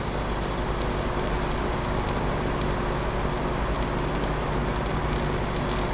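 Jeweler's torch flame hissing steadily on an orthodontic appliance's wire joint while silver solder is melted and built up, with small crackles.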